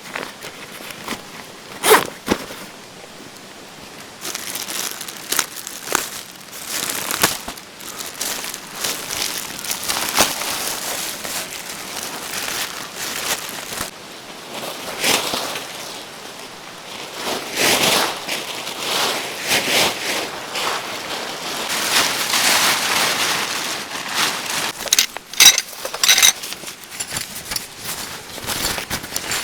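Plastic tarp sheet crinkling and rustling as it is handled and spread out, in irregular bursts with a few sharp knocks.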